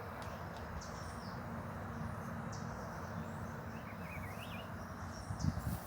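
Outdoor ambience: a steady background hiss with a few short, high bird chirps scattered through it, and a brief low thump near the end.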